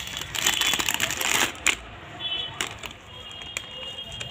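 Packaging crinkling and rustling with many small clicks as the boxed bras are handled, busiest in the first half and then settling to scattered clicks.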